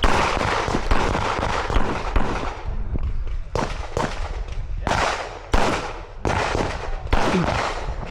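A string of 9mm pistol shots from a CZ Shadow 2 fired during a competition stage run, coming every half second to second, some in quick pairs, each with an echoing tail.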